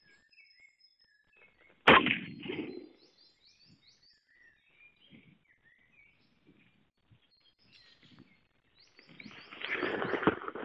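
A single rifle shot from a Saiga-MK-03 carbine in 7.62×39 about two seconds in: a sharp crack trailing off in about a second of echo. Small birds chirp afterwards, and a rustling noise builds near the end.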